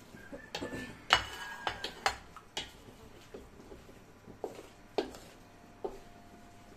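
Dishes and metal utensils clinking and knocking: a series of sharp clinks, some ringing briefly, the loudest about a second in.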